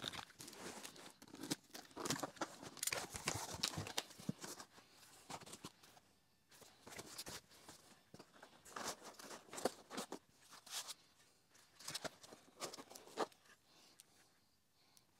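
Cardboard shipping box being opened by hand: flaps and tape pulled apart with dense rustling and scraping for the first few seconds. Then scattered scrapes and light knocks as the foam packing and the boxed metal parts are handled, fading out near the end.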